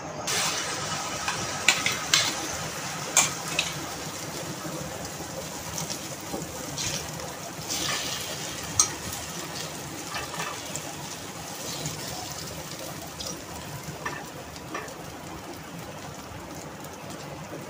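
Egg-and-chicken omelette mixture sizzling steadily in hot oil in a stainless steel pan, while a steel spoon spreading it scrapes and taps against the pan now and then.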